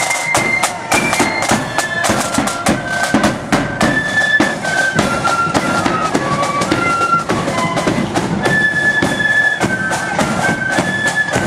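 Marching flute band playing a tune: a line of flutes carrying the melody in held notes over rapid, steady snare drum strokes and rolls, with a bass drum keeping the beat.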